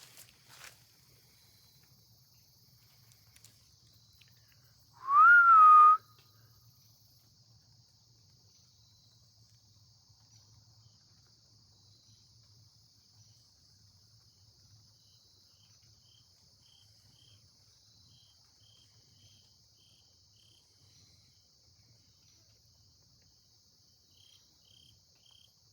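One loud human whistle about five seconds in, roughly a second long, sliding up in pitch and then holding. It is a call into the woods to draw a reply. Steady chirring of crickets or other insects runs throughout, with short runs of faint high chirps later on.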